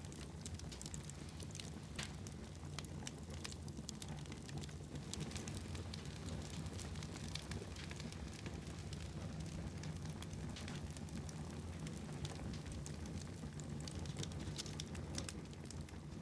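Wood fire burning in a fireplace, crackling with frequent, irregular sharp pops over a low, steady rumble.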